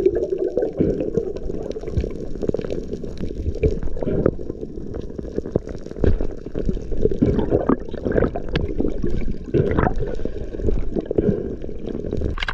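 Water gurgling and bubbling, dull-sounding, with many scattered clicks and knocks.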